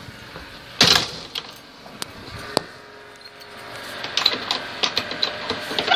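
Knocks and clicks from a wooden-framed wire-mesh gate being handled: one sharp knock about a second in, a couple of single clicks, then a run of light clicks and taps near the end.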